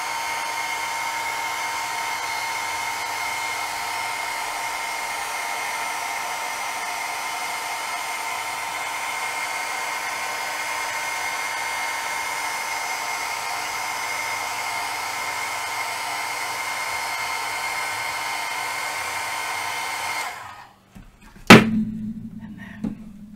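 Handheld craft heat gun blowing steadily with a fixed high whine, heating a piece of craft foam so it will take a stamp imprint; it is switched off about twenty seconds in. About a second later comes one loud sharp knock, then light clatter.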